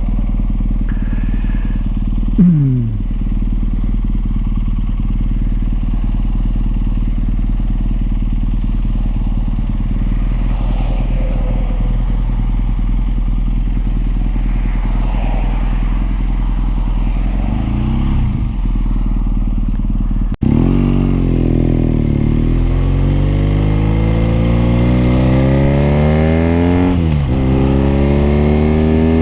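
BMW R nineT's boxer twin engine running under way, with a quick blip of revs about two-thirds through. After an abrupt break it accelerates hard, pitch rising and dropping at each upshift, three or four times through the gears.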